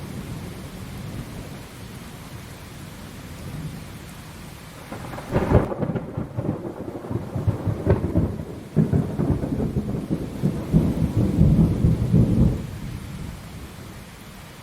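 Thunder in a rainstorm: a low rumble under steady rain, then a loud crack about five seconds in that breaks into several seconds of rolling, crackling peals before fading back to rumble and rain.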